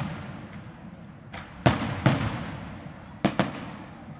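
Aerial firework shells bursting: two pairs of loud bangs, one pair about a second and a half in and another about three seconds in, each trailing off in a long echo.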